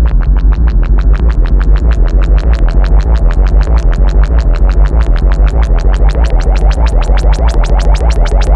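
Behringer Model 15 modular synthesizer playing a fast, even sequence of short notes over a steady deep bass. The sound grows gradually brighter as the filter opens.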